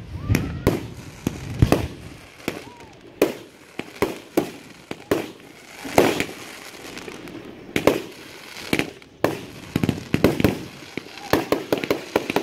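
Aerial fireworks shells bursting in a rapid, irregular series of bangs and pops. Near the end the reports come in quick crackling clusters.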